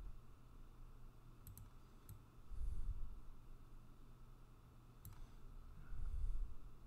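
A man breathing into a close microphone, two heavy breaths about two and a half and six seconds in, with a few sharp computer clicks between them: a quick pair about one and a half seconds in, another at two seconds and one at five.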